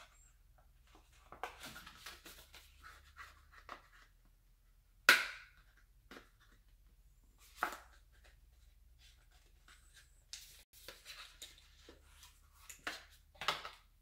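Hands handling a smartphone and its box: scattered rustles and small clicks. A sharp click about five seconds in is the loudest.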